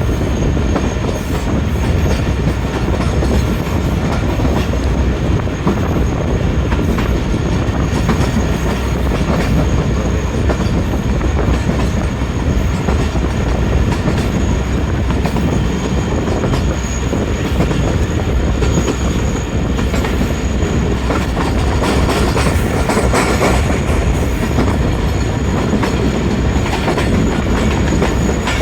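A train running on the track: a steady, loud rumble of wheels and carriages over the rails, with a thin high tone held steady on top.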